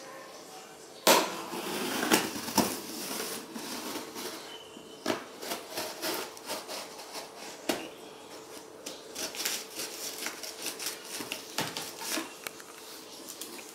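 A blade slitting the packing tape along the seam of a cardboard box. A sharp scrape comes about a second in, followed by a couple of seconds of scraping, then a run of small ticks and rustles of tape and cardboard.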